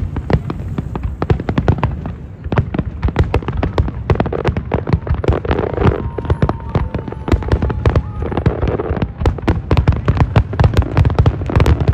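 Fireworks going off in a rapid, dense barrage: many sharp bangs and crackles a second over a low rumble.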